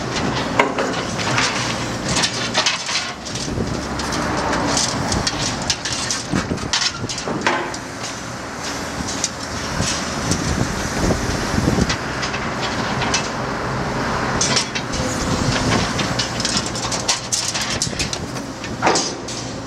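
CAT 314D LCR excavator's diesel engine running under load with a steady low hum while its hydraulic demolition shear crushes concrete and rebar, giving irregular cracks, crunches and metal clanks throughout.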